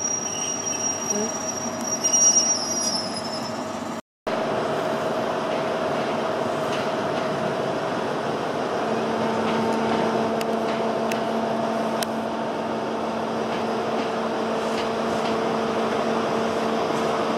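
High Speed Train (HST) class 43 diesel power car running as the train moves through the station: a steady engine drone with several held hum tones that firm up in the second half. The sound cuts out completely for a moment about four seconds in.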